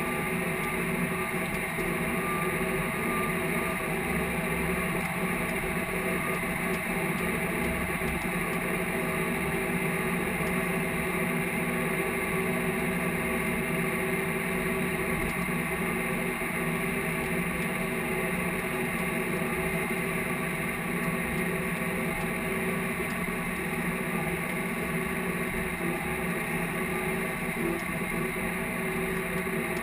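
Case IH tractor's diesel engine running steadily under load while pulling a field cultivator, an even drone that holds without change.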